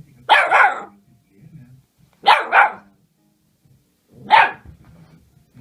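Whippet puppy barking: one bark about a third of a second in, a quick pair just after two seconds, and one more a little after four seconds.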